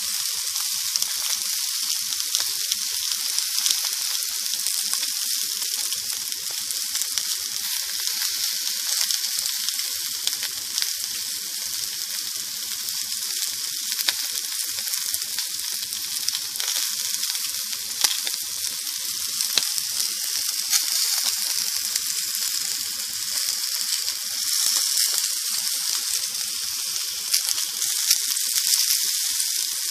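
Sausages frying in a pan: a steady sizzle with scattered sharp pops and crackles.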